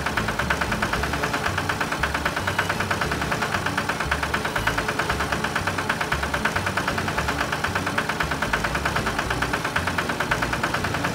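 Cartoon sound effect of a heavy machine running: a steady, rapid mechanical pulsing, several beats a second, without let-up.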